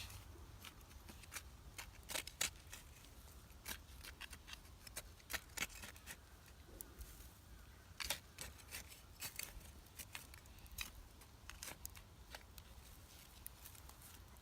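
Wood campfire crackling: irregular sharp snaps and pops of burning sticks over a low steady rumble.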